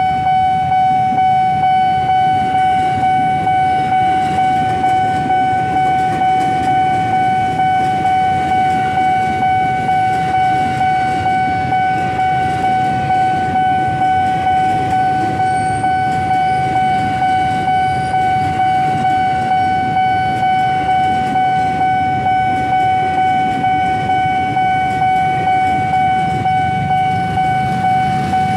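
Level-crossing warning bell ringing one steady pitch over and over, about one and a half rings a second, over the low rumble of a KRL electric commuter train passing across the crossing.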